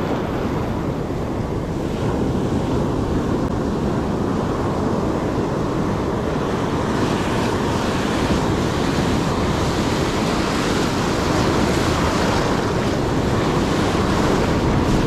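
Ocean surf washing up the beach, a steady rush of noise that swells a little partway through, mixed with wind on the microphone.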